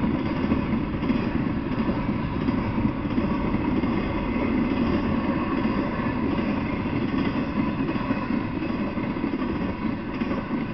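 Freight train cars rolling past on the rails, a steady rumble of steel wheels on track with no break.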